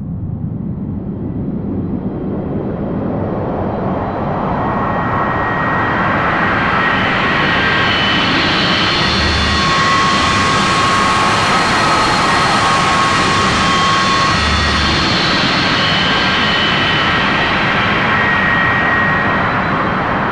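Synthesized 1970s-style spaceship sound effect: a steady engine-like noise rumble with faint held tones in it, swelling up over the first several seconds, brightest in the middle and slowly dulling again, like a craft passing over.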